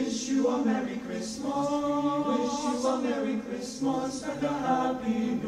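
A choir singing a Christmas carol, with long held chords in the middle of the phrase.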